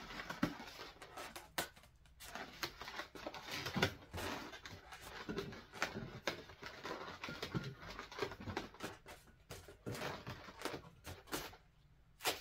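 Inflated 260 latex modelling balloons squeaking and rubbing against each other and against the hands as they are pressed and twisted into a flower: short, irregular squeaks and rustles.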